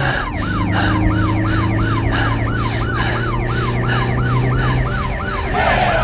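Police siren effect, a quick rising-and-falling wail repeating about three times a second, over a low steady hum that fades out near the end.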